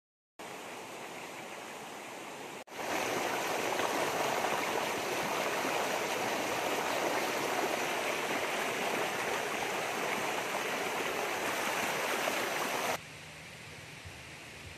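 A shallow rocky stream rushing and splashing over boulders in a small cascade, a steady rush of water. It starts faint, jumps much louder a couple of seconds in, and drops abruptly to a far quieter background near the end.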